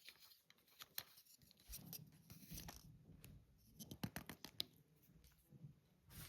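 Near silence: an Emerson Premium ceiling fan running quietly on medium speed, with scattered faint clicks and rustles.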